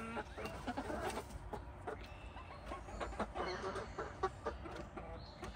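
Backyard hens clucking softly, close by, with scattered short clicks and taps.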